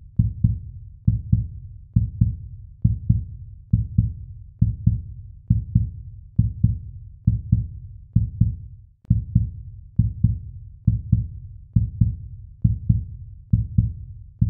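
Slow heartbeat sound effect on the soundtrack: low paired thumps, lub-dub, repeating evenly a little faster than once a second.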